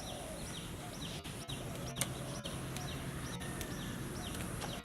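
A bird calling over and over in short, high, falling notes, about three a second, over a low steady hum, with a single sharp click about two seconds in.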